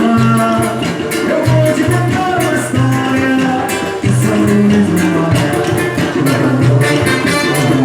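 A band playing fast, festive Latin American–style music with a steady drum beat and pitched instruments over it.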